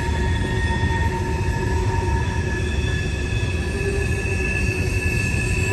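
Train cars rolling through a sharp curve: a steady low rumble with wheel flanges squealing against the rail in several held high tones.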